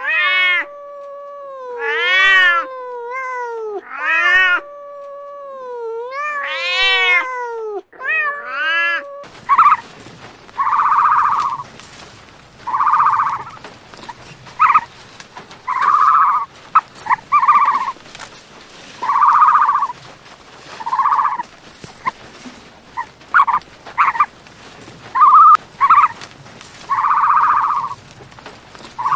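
Cats meowing over the first nine seconds: several loud meows that rise and fall, with long drawn-out meows between them. Then, after a change of scene, a short call repeats every second or two, sometimes in pairs, over a steady hiss.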